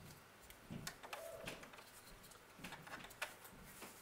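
Faint clicks and light handling of a USB cable and its plug being fitted into a laptop's USB port, with a few soft knocks and a brief faint tone about a second in.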